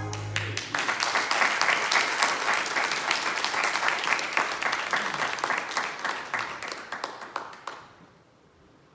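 Congregation applauding, the clapping dying away about eight seconds in.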